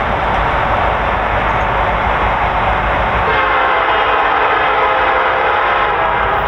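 CN freight locomotive's multi-chime air horn sounding one long steady blast, starting about halfway through, over the steady noise of the approaching train.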